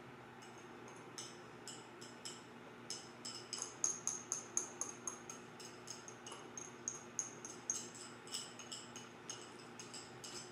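Metal spoon scraping and tapping a small glass bowl as the chia egg is spooned out into a stainless steel mixing bowl: faint, quick light clinks, a few a second, busiest in the middle.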